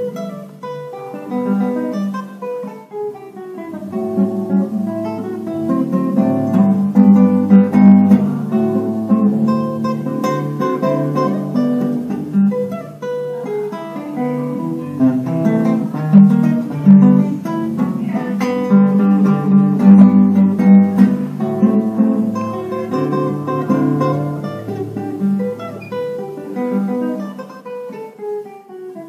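Solo classical guitar being fingerpicked, a continuous melody of plucked notes over bass notes, playing Brazilian choro.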